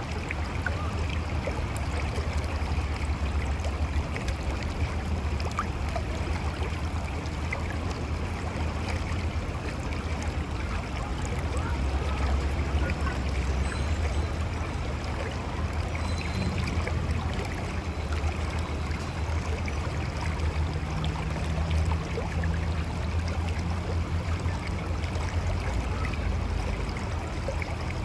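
Mountain river flowing steadily over rocks, a continuous rush of water with gurgling and a deep low rumble.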